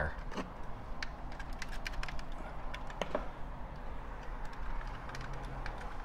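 Stranded copper wire leads being pushed into the terminal block of a Tesla Wall Connector's plastic housing by hand: scattered small clicks and ticks, with one sharper click about three seconds in, over a steady low hum.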